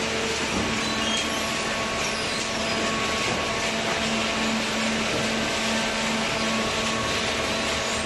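Cardboard baler and its chain feed conveyor running: a steady machine whir with a constant low hum underneath.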